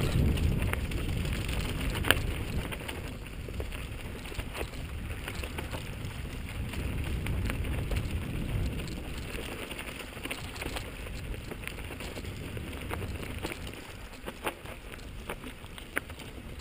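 Mountain bike riding down a rough dirt singletrack, heard from a helmet-mounted camera: wind buffeting the microphone as a low rumble, with scattered clicks and knocks of the bike rattling over bumps. The sharpest knock comes about two seconds in.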